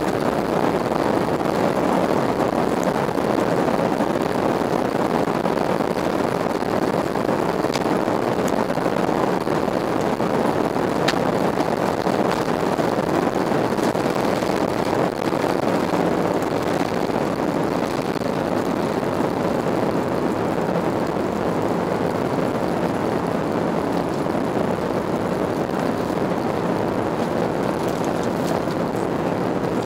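Airbus airliner's jet engines at takeoff thrust, heard from inside the cabin as a steady loud rushing noise through the takeoff roll and lift-off into the climb.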